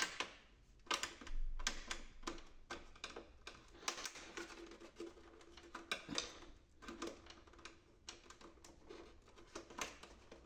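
Irregular small clicks, taps and scrapes of plastic being handled and pried: a small screwdriver working loose the plastic blocks that hold an HP Officejet 6500 printer's upper cover.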